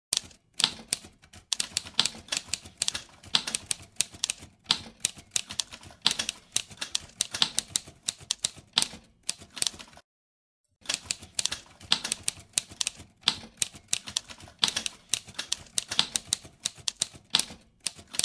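Typewriter keys striking in quick, uneven runs of clacks. They stop for just under a second about ten seconds in, then start again.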